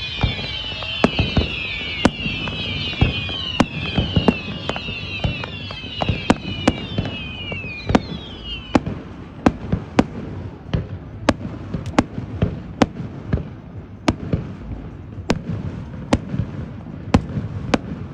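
Fireworks going off in quick succession. For the first half, many shrill whistles overlap, each falling in pitch, and they stop about nine seconds in. Sharp bangs and cracks go off all the way through, about two a second.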